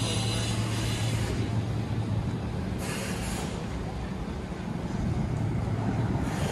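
A vehicle running with a steady low hum. A hiss fades out in the first second or so, and short rushes of noise come about three seconds in and again at the end.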